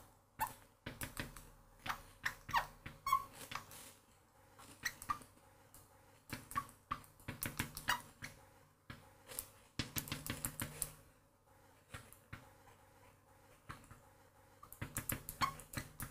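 Marker pen writing on a glass lightboard: short squeaks and taps of the pen strokes, coming in quick bunches with pauses between.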